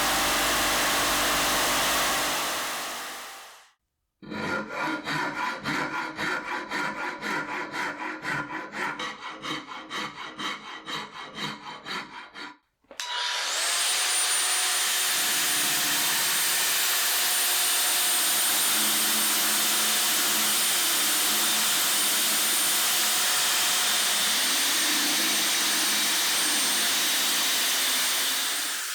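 A hand tool working wood in quick back-and-forth strokes, about two to three a second, for around eight seconds. Before and after it, a power tool runs steadily with a thin high whine, with abrupt cuts in between.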